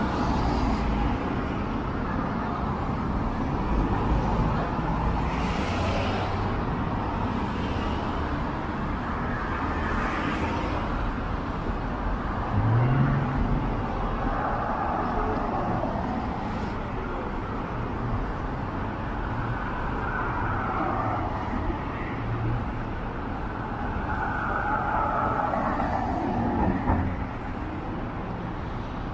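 City street traffic: a steady wash of road noise, with cars passing in slow swells. An engine note rises briefly about halfway through.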